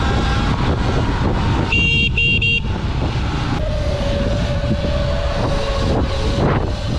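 Wind buffeting the microphone while riding. A vehicle horn beeps twice in quick succession about two seconds in. From about halfway a steady, slightly falling whine runs under the wind.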